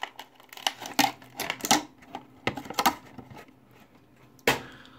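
Irregular rustling and clicking of packaging and accessory cables being handled by hand, with one sharper knock near the end.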